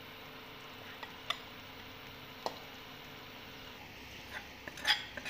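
Flour being scooped into a bowl: a few light clicks of utensil against the bowl, then a quick run of knocks near the end, over a steady low hiss.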